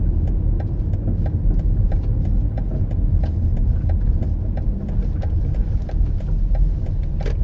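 Car running on the road, heard from inside the cabin: a steady low engine and road rumble, with a light, regular ticking about two or three times a second and one sharper click near the end.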